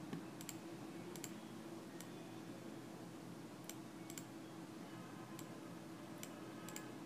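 Computer mouse clicking at an irregular pace, some clicks in quick pairs, over a faint steady hum.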